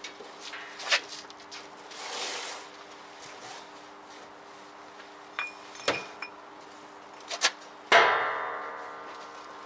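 Cargo tie-down straps being stowed in a trailer's steel side toolbox: scattered clicks, knocks and rustling, then one loud metal clang about eight seconds in that rings on for over a second.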